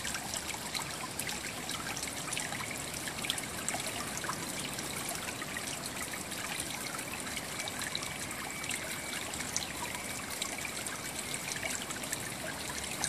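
Steady trickling and splashing of running water, an even hiss full of fine crackles.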